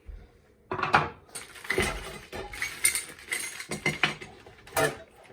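Espresso machine accessories and packaging being handled and taken out of their shipping box: hard parts clinking and knocking, with rustling between, and sharp knocks about a second in and again near the end.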